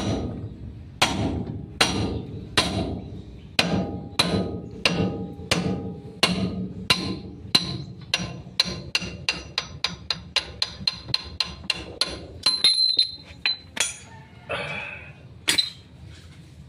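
Hammer blows on steel, driving the kingpin down out of a Mitsubishi Canter's front steering knuckle, each strike ringing. The blows come about one a second, then quicken to about three a second before stopping two-thirds of the way in. A few loose metal clanks and a scrape follow, with one last sharp clank near the end.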